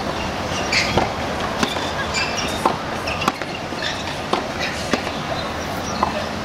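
Tennis balls struck by racquets and bouncing on a hard court during a baseline rally: sharp pops about every second, over steady background noise.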